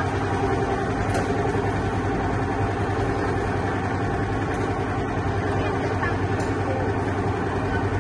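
Boat engine running steadily at an even speed, a constant low drone with a few faint clicks over it.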